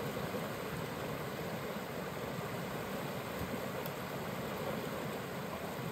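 Fast-flowing river water rushing, a steady noise. The river is swollen and still rising.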